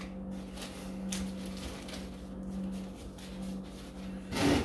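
Plastic packaging and cardboard rustling as items are handled in a box, over a steady low hum, with a louder rustle near the end.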